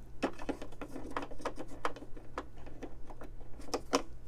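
Machine embroidery running: a steady low hum with irregular sharp clicks, a few a second.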